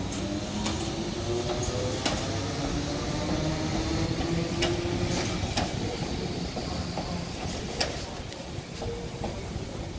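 ScotRail passenger train pulling away and accelerating: a motor whine climbing in pitch over the first six seconds over a steady low rumble. Sharp clicks from the wheels crossing rail joints and points come every second or two, the loudest about eight seconds in.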